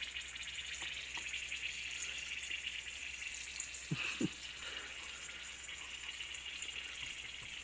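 Oil sizzling steadily in a skillet where breaded hellgrammites (dobsonfly larvae) are frying. Two low thumps about four seconds in.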